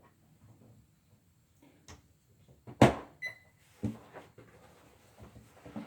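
Scattered light clicks and knocks from toilet parts being handled, with one loud sharp knock about three seconds in, followed by a short high beep.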